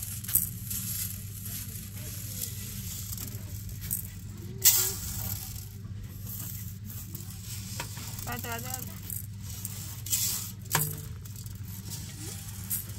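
Dry mung beans rattling and clicking on a large metal tray as they are spread and sorted by hand, with a few sharp louder clinks, over a steady low hum.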